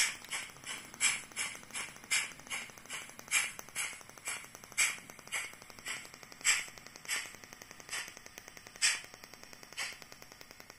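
Fleischmann 4171 BR 03 model steam locomotive's LokSound 5 sound decoder playing steam chuffs through its small speaker, a steady beat with a stronger stroke about once a second, slowing and fading toward the end, over a fine fast ticking from the running model.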